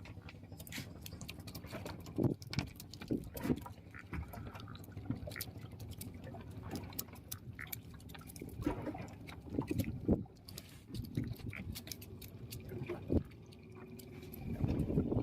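Water slapping and splashing against a small fishing boat's hull, with many irregular knocks and clicks.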